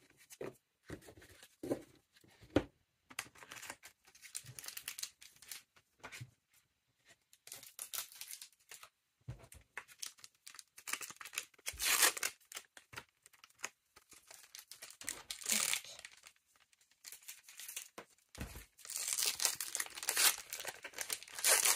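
Foil trading-card booster pack wrappers being torn open and crinkled, in several bursts with the longest and loudest near the end. In the first seconds there are soft taps and slides of cards being handled.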